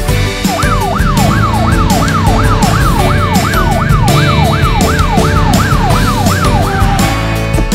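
Electronic fire-truck siren in a fast yelp, its pitch sweeping up and down about two and a half times a second; it starts about half a second in and stops near the end. Background music with a steady beat plays underneath.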